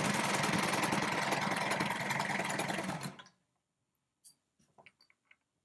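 Brother four-thread overlocker (serger) running steadily as it stitches and trims a seam in jersey fabric, then stopping abruptly about three seconds in. A few faint ticks and rustles follow.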